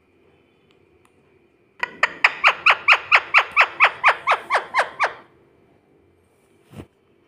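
Rose-ringed parakeet giving a rapid run of about seventeen short, shrill calls, each falling in pitch, about five a second for some three seconds. A single faint click follows near the end.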